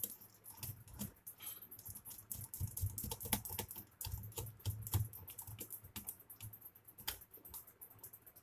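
Irregular small clicks and taps of hands working on a plastic electrical switchboard, fitting wires into the switch and socket terminals.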